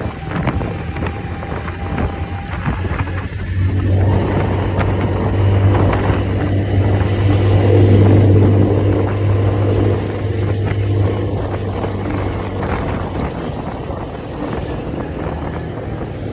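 ATV engine running under throttle. Its hum grows louder a few seconds in, is loudest around the middle and eases off toward the end.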